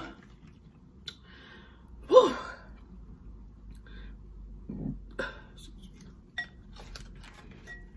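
Close-up eating sounds: scattered wet mouth clicks and lip smacks while eating with the fingers, with a short, loud throaty vocal sound about two seconds in.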